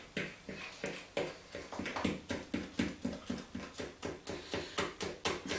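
Pancake batter being beaten by hand in a mixing bowl: a quick, even rhythm of the utensil knocking against the bowl, about four strokes a second, with the wet batter swishing between knocks to work out the lumps.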